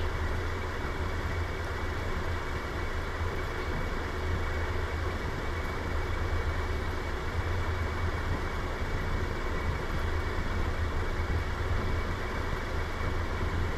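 Fish-roe fritters frying in hot oil in an iron kadai on low heat: an even, steady sizzle over a constant low hum.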